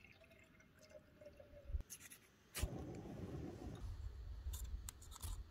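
Water poured from a plastic bottle into a cup, a faint trickle with a thin tone that sinks slightly. About two and a half seconds in there is a sharp click, then small handling clicks and rustles over a steady hiss.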